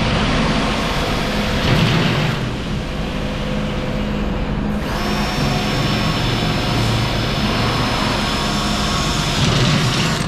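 Power tools running in a metal fabrication shop during work on a boat fuel tank: a steady, noisy machine sound, with a high whine that starts about halfway through and stops near the end.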